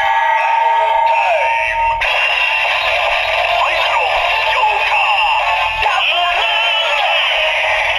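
DX W Ridewatch toy playing music with singing through its small built-in speaker, thin and tinny with no bass, the tune changing about two seconds in and again near six seconds.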